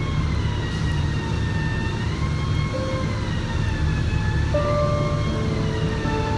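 Steady low rumble and hiss of a compressed-air paint spray gun in use. Over it a faint tone rises and falls slowly, with a few short held notes.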